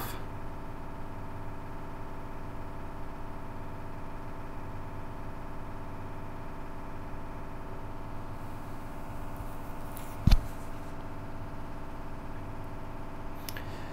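Steady background hum with one sharp knock about ten seconds in.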